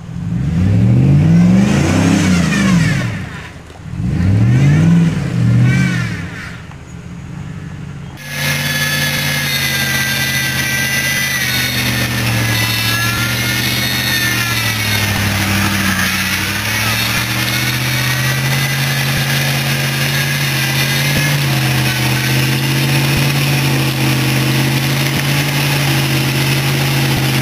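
Car engine revving hard twice, each rev rising and falling over about two seconds, then from about eight seconds in a steady high-revving engine drone that dips briefly in the middle.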